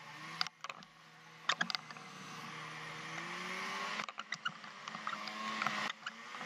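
Polaris SKS 850 snowmobile's two-stroke twin engine running, growing louder and rising in pitch over several seconds, over a steady hiss with scattered sharp clicks.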